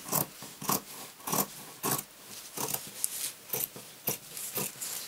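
Fabric shears snipping through layered cotton fabric, a steady run of sharp cuts about two a second, as the seam allowance of a sewn cover is trimmed back.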